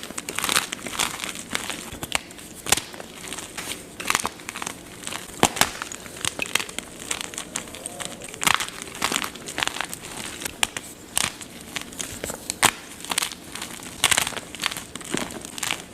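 Blocks of gym chalk being crushed and crumbled, one crisp crunch after another at an irregular pace, with a fine crumbling rustle between the crunches.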